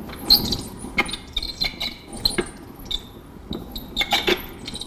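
A Sinclair C5 wheel turning on dry, worn bearings, giving an irregular run of high squeaks and clicks: the bearings need replacing.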